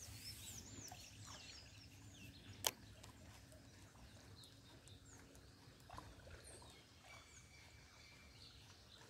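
Near silence with faint, scattered bird chirps, and a single sharp click about two and a half seconds in.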